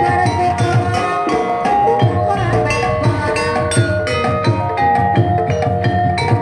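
Ebeg trance-dance accompaniment music: Javanese hand drums (kendang) beating a fast steady rhythm under tuned percussion playing a repeating melody of short ringing notes.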